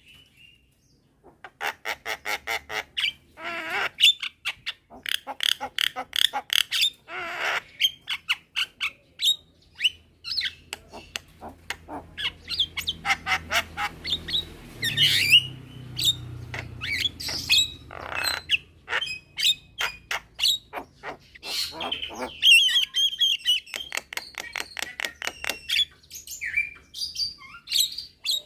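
Javan mynas calling: rapid runs of short, harsh squawking notes mixed with chattering and a few whistled glides.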